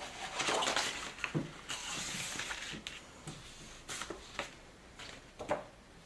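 Card-stock craft pieces being handled and moved on a tabletop: rustling and sliding of card, with a few short light taps as pieces are set down.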